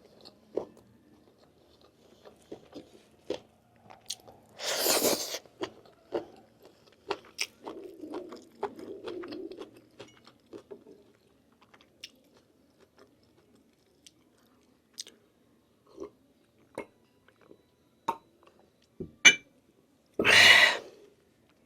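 Close-up chewing and wet mouth clicks of a person eating lamb meat and rice. Two louder short rushes of noise come about five seconds in and near the end.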